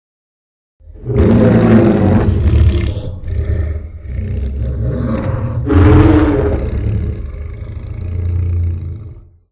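Tyrannosaurus roar sound effect: a long, deep roar that starts about a second in, swells again around the middle and trails off near the end.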